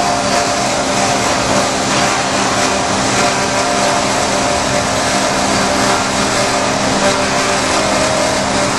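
Hyd-Mech S-25P swing-frame horizontal band saw running steadily through a cut in a metal bar, with coolant flowing: a constant machine hum under an even noise.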